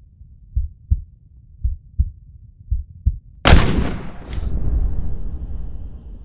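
A heartbeat sound effect, double low thumps about once a second, then about three and a half seconds in a single loud rifle shot from a Browning X-Bolt bolt-action rifle, followed by a long rushing tail that fades near the end.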